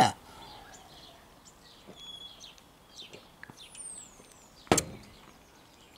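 Faint outdoor birdsong: scattered short chirps. About three-quarters of the way through comes a single short, sharp knock, the loudest sound.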